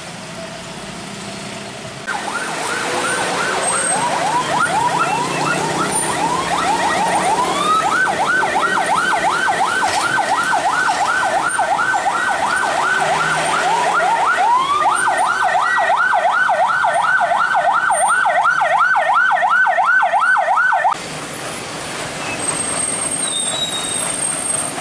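Electronic yelp siren sweeping rapidly up and down, about three sweeps a second, over traffic rumble. It switches on about two seconds in and cuts off suddenly near the end.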